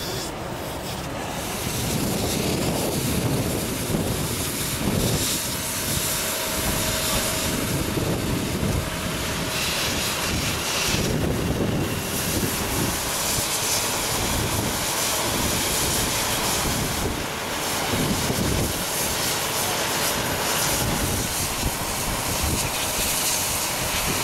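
Fire hose spraying water onto a burned-out semi-truck cab: a steady rushing hiss over a low rumble, without letup.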